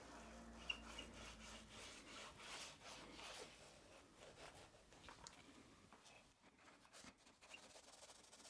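Small paint roller rolling paint onto wooden roof-batten workbench legs: faint, repeated rubbing strokes back and forth.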